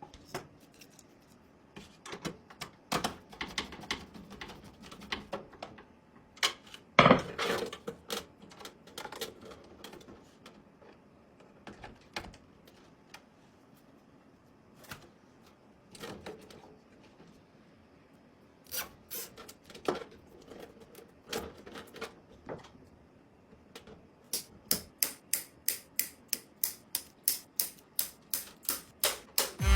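Irregular clicks, knocks and clatter of small hard objects being handled, with a louder cluster of knocks about seven seconds in. Near the end comes a steady run of about three sharp clicks a second.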